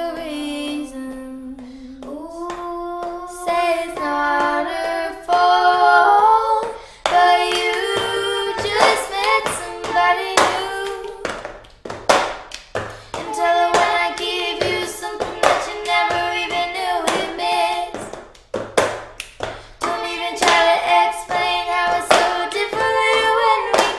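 Pop song soundtrack: a singing voice holding long, gliding notes, sliding down on a held note at the start, over a steady beat of hand claps.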